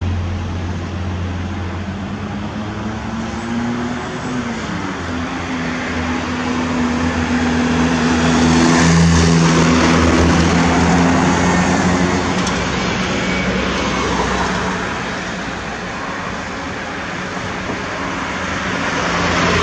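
Road traffic passing: engine hum and tyre noise that swells to its loudest about halfway through and then eases off.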